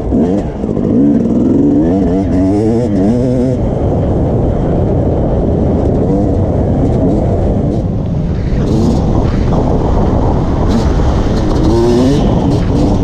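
Yamaha YZ250 two-stroke dirt bike engine being ridden, its pitch repeatedly rising and falling as the throttle is worked and gears change.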